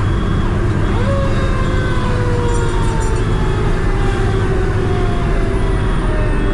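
2003 Pierce Dash fire truck running on a response: its siren rises quickly about a second in, then slowly falls in pitch, over the steady drone of the engine and road noise inside the cab.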